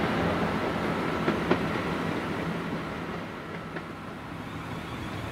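South Western Railway Class 450 Desiro electric multiple unit giving a steady electric hum, with two sharp clicks about a second and a half in; the hum eases off after about three seconds.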